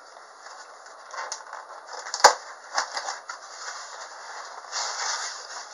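Cardboard box being opened and its packaging handled: crinkling and rustling with scattered clicks, and one sharp snap a little over two seconds in.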